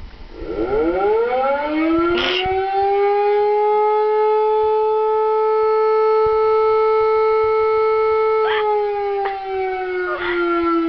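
Mechanical civil-defence-style siren winding up: its tone rises smoothly for about two seconds, holds one steady pitch, then starts to wind down near the end. A few short sharp noises cut across it, about two seconds in and again near the end.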